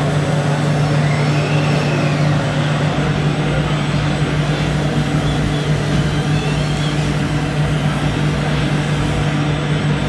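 Steady, unchanging low engine-like drone, as from model trucks' diesel sound modules, over a dense background din.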